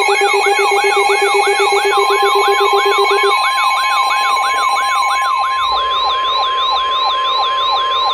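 Weather-radio alert alarm: an electronic siren sweeping rapidly up and down, about three sweeps a second, with a pulsing lower beep that stops about three seconds in. About two seconds in, the steady 1050 Hz NOAA Weather Radio warning alarm tone joins, signalling an alert.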